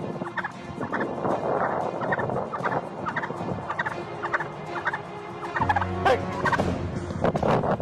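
A turkey gobbling over and over in a rapid series of short calls.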